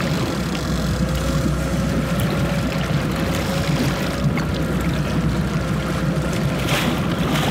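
A fishing boat's engine running steadily, a low rumble with a constant hum, under the wash of water along the hull; a brief rush of noise near the end.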